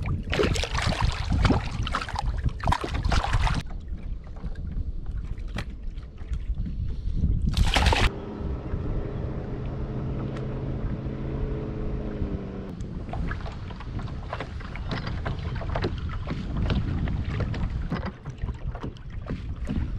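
A hooked fish splashing and thrashing at the surface beside a boat, over wind on the microphone. For about four seconds in the middle a steady low hum at an even pitch comes in, then stops; after that the splashing returns.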